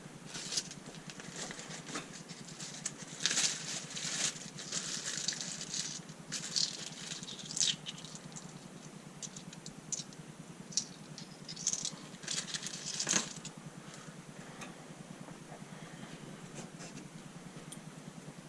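Hand handling noises: irregular rustling, light rattles, clicks and scrapes of small parts, busy for the first thirteen seconds or so and then dying away.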